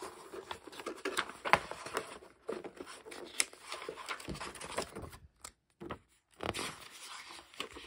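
Pages of a thin, glossy rule book being turned and flexed by hand: irregular paper rustling and flapping with a few sharp snaps, thinning into short pauses after about five seconds.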